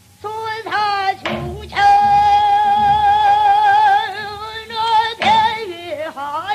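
Female pansori singer singing a danga (short pansori song) in Korean, with bending, ornamented phrases and a long wavering note held through the middle.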